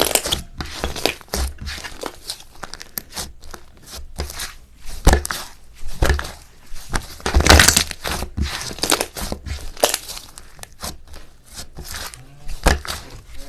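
Soft, creamy-textured slime being kneaded and stretched by hand, with irregular crackles, pops and squelches as the air pockets burst.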